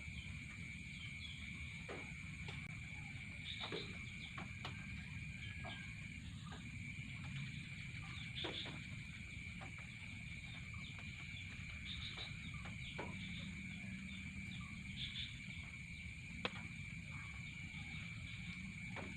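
Rural outdoor morning ambience: scattered short bird chirps over a steady high-pitched insect whine that stops briefly about six seconds in, with a low rumble underneath and a few sharp clicks.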